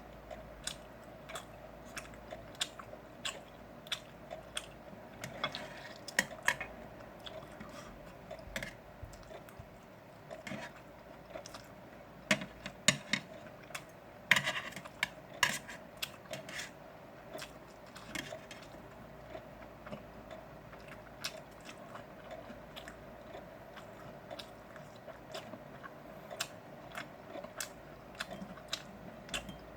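Close-up mukbang eating sounds: a person chewing and biting grilled pork belly, with many short sharp clicks and smacks scattered throughout, busiest around the middle, over a steady faint hum.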